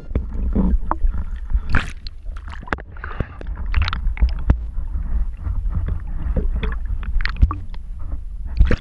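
Water rushing and knocking against a submerged camera, heard muffled through its housing: a steady low rumble with many irregular sharp clicks and knocks.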